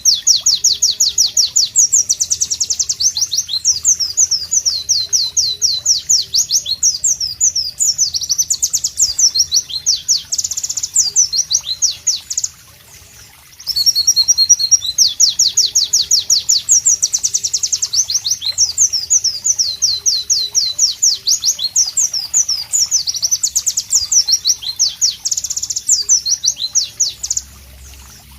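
White-eye (pleci) singing a loud, rapid, high-pitched twittering song of quick repeated notes. It sings in two long bouts, with a pause of about a second just before halfway.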